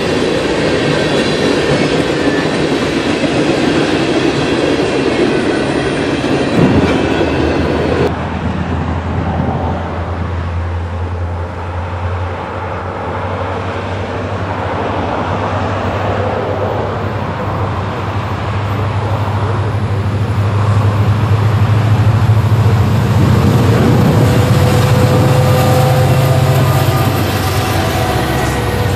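Freight cars rolling past with clickety-clack over the rail joints and some high wheel squeal. This cuts off suddenly about eight seconds in, and then diesel freight locomotives approach, their engines making a steady low rumble that grows louder as they draw near and pass.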